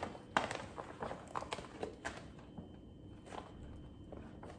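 Crinkling and rustling of a stiff, glossy woven-plastic tote bag being handled and opened: a scatter of short crackles, busiest in the first two seconds and sparser after.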